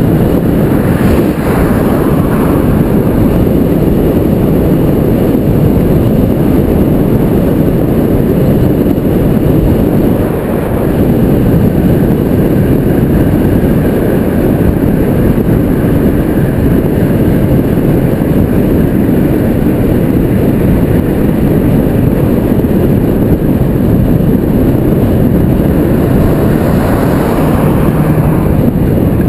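Steady, loud wind rush and road rumble on a helmet-mounted GoPro Hero 2 as the road bike rides along at speed. Near the end a car passes close by.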